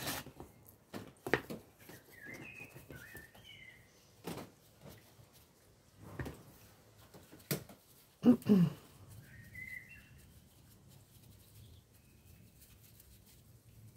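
A bird chirping faintly in two short bouts several seconds apart, amid scattered light clicks and knocks from handling things on the work table; the loudest sound is a brief thud about eight seconds in.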